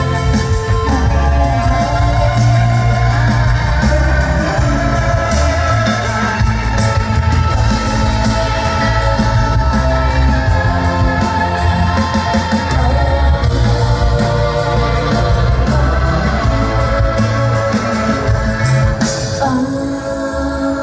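Live rock band playing with singing: guitar, bass and drums. The sound thins out and drops in level near the end.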